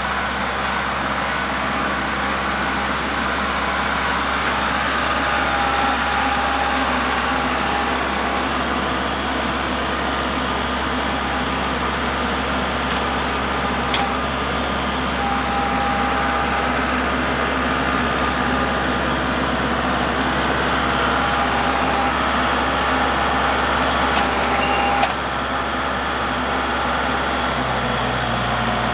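Kubota MX5400 HST tractor's diesel engine running steadily, with a sharp click about halfway through.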